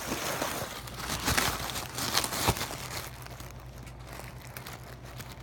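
Paper fast-food packaging being handled and crinkled, with rustling and a few sharp clicks and taps over the first three seconds, then quieter handling.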